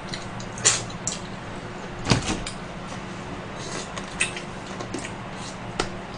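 Close-miked eating sounds of butter-grilled shrimp eaten by hand: irregular mouth smacks and small crunchy clicks, with a louder one about two seconds in, over a steady low hum.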